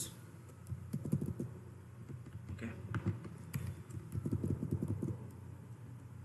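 Computer keyboard keystrokes and mouse clicks, in short rapid clusters about a second in, around three seconds, and again between four and five seconds.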